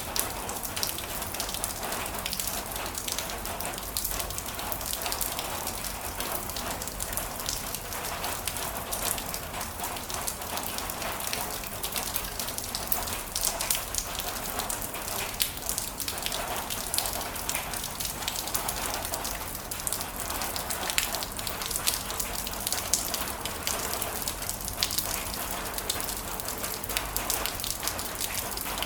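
Heavy rain falling steadily, a dense patter of individual drops hitting a surface.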